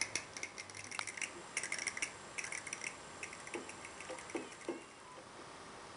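Sharp, high clicks in quick irregular clusters, with a few duller knocks among them near the end; they die away about five seconds in, leaving a steady hiss.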